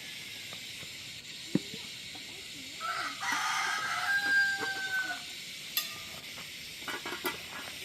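A rooster crows once: a few rough syllables ending in a long held note, over a steady hiss. A sharp knock comes about a second and a half in, and a few clicks follow near the end.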